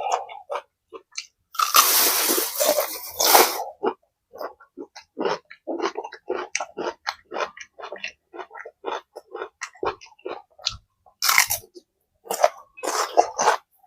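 Close-miked eating: a person chewing and crunching food in quick, wet strokes, with a louder, longer noisy stretch about two seconds in and another loud cluster near the end.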